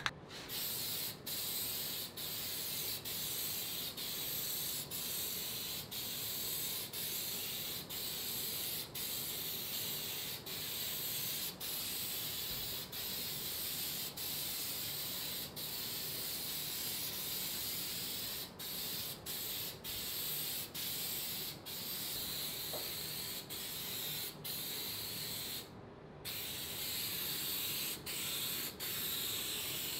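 Aerosol can of gloss black appliance epoxy spraying in a steady hiss. The hiss is broken by short gaps about once a second as the nozzle is let off between passes, with a longer pause near the end.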